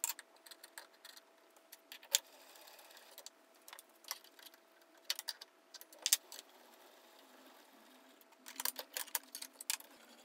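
Intermittent metallic clicks and clinks of a router bit being fitted into the router's collet and the collet wrenches being handled, with a quick run of clicks near the end, over a faint steady hum.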